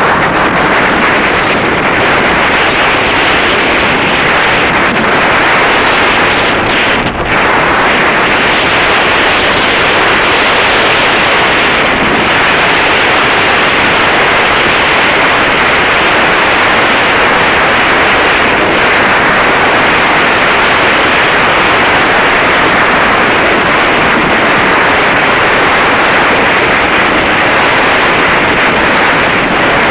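Strong wind buffeting the camera's microphone: a loud, steady rushing roar that dips briefly about seven seconds in.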